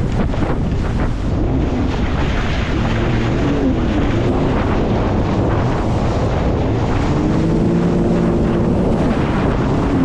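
Jet ski engine running under way, its pitch shifting up and down, buried in heavy wind noise on the microphone and the rush of water.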